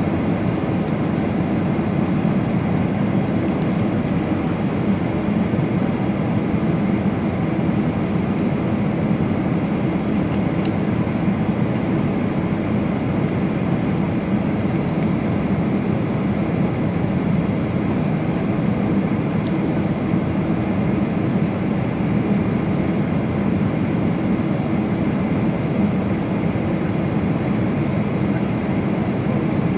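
Steady cabin noise inside a jet airliner in flight: an even low drone of engines and rushing air, with a few faint ticks.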